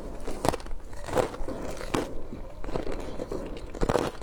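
Teeth biting and crunching through frozen passion fruit ice: a series of irregular, sharp crunches, with a loud pair near the end.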